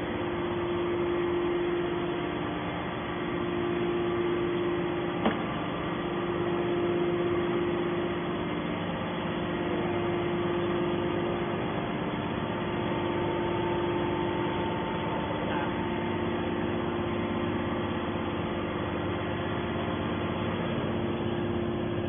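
Hydraulic scrap metal baler's power unit, an electric motor driving the hydraulic pump, running at idle with a steady, even hum. A single short click about five seconds in.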